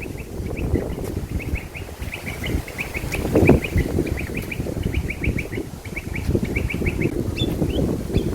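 A bird calling in quick runs of short, high chirps, repeated many times, over wind buffeting the microphone with a low rumble that swells in a gust about three and a half seconds in.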